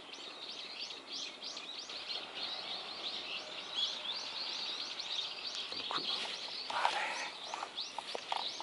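Small birds chirping in a steady run of quick, high, falling calls, several a second. Near the end come a few clicks and a rustle as the spinning rod and reel are handled.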